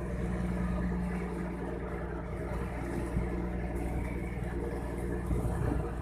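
A ship's engine and machinery running, a steady low drone, with a couple of brief knocks about halfway through and near the end.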